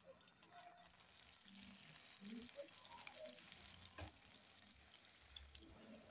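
Tuna spring rolls (lumpia) frying in shallow cooking oil in a pan: a faint sizzle with small crackles that builds about a second in as the rolls go into the hot oil, with one sharper click about four seconds in.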